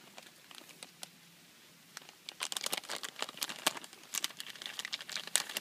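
Crinkling of the plastic sleeve of an MRE flameless ration heater, with the entree pouch inside, as it is handled. It is faint and sparse at first and turns into dense crinkling from about two seconds in.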